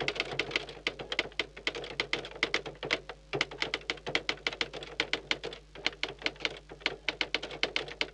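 Typewriter sound effect: rapid key clacks, about seven a second with brief pauses, as on-screen text is typed out letter by letter.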